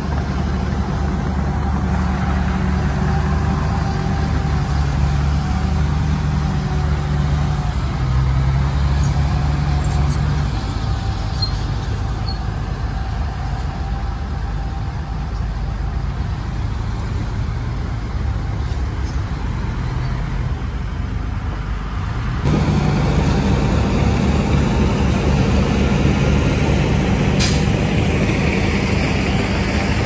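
Heavy diesel earthmoving machinery running, its engine note shifting with load: it eases off for a stretch and then picks up again about two-thirds of the way through. A brief hiss sounds near the end.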